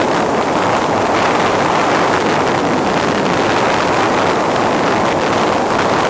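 Loud, steady rush of wind and road noise from a moving car, with wind blowing across the microphone.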